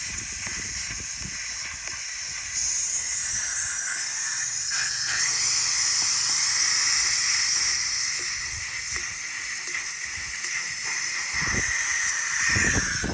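Compressed air hissing out of a tire's valve stem as the Schrader valve core is pulled, letting the tire down. A steady hiss that gets louder about two and a half seconds in.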